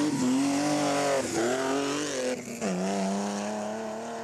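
BMW E30 rally car's engine revving hard as it accelerates out of a hairpin. The note climbs and falls back twice, about a second and two and a half seconds in, as it shifts up, then holds steadier as the car pulls away.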